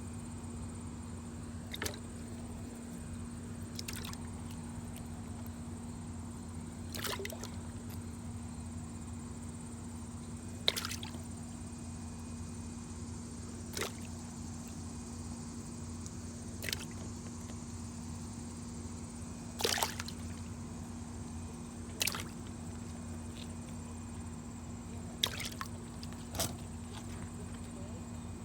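Short, sharp water splashes and drips every two to three seconds over a steady low hum.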